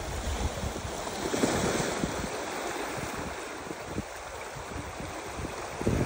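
Wind gusting against the microphone in uneven low rumbles over a steady rushing hiss.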